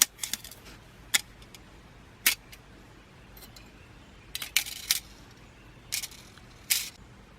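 Thin aluminium stove panels and wire pins clinking and rattling as the small triangular stove is handled and set up: a series of sharp, light metallic clicks at irregular intervals, with a quick cluster of them a little past the middle.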